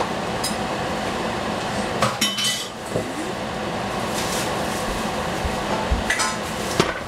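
Metal pots and lids clinking on a stovetop: a cluster of ringing clinks about two seconds in and a few more near the end, over a steady background hiss.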